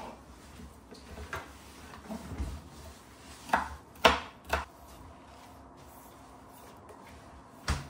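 A kitchen knife knocking on a wooden chopping board: a few light knocks, then three sharper ones about half a second apart around the middle, and a single knock near the end.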